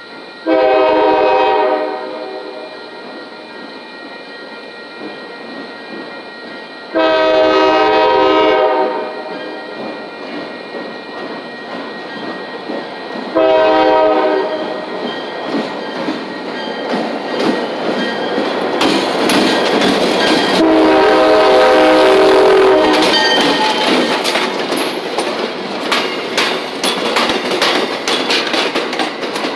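Loud multi-note horn of an MBTA switcher locomotive, sounded four times as it approaches. The train then rolls past, its diesel engine running and its wheels clicking rhythmically over rail joints under passing coaches.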